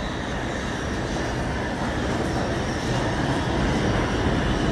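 New York City IRT subway train approaching the station through the tunnel, its rumble growing steadily louder.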